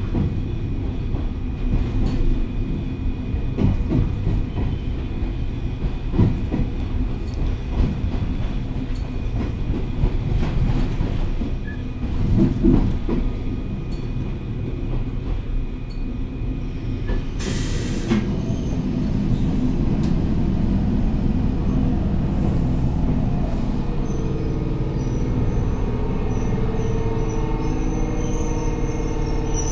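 Inside an electric train car in motion: the steady rumble of wheels and running gear with scattered rail-joint clicks. A short hiss of air comes about seventeen seconds in, and from about twenty-four seconds steady squealing tones join the rumble.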